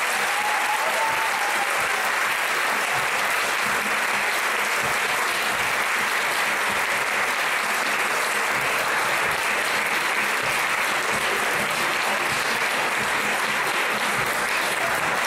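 Audience applauding steadily: dense, continuous clapping that starts just before and holds at an even level throughout.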